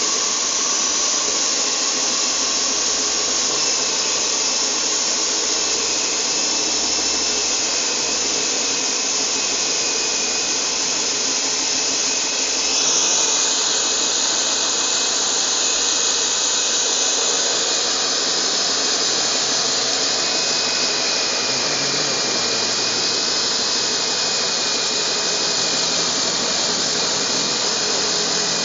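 Husqvarna DM280 electric core drill running under load as its core bit cuts through reinforced concrete. It gives a steady high whine over a dense grinding noise, and its tone shifts about halfway through.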